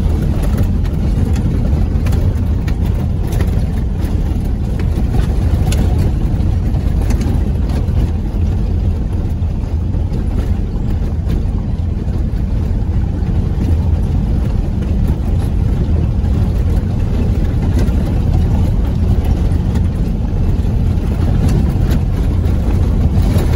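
Vehicle engine and tyres on a rough dirt road, heard from inside the cab as a steady low rumble, with small rattles now and then.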